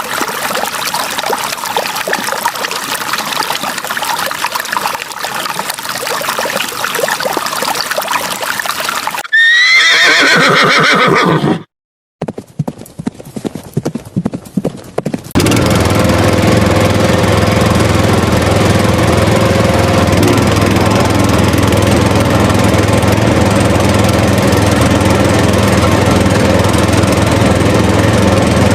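A clattering stretch, then a horse whinnying with rising and falling pitch about ten seconds in. After a brief gap with scattered clicks, a small motor runs steadily for the second half.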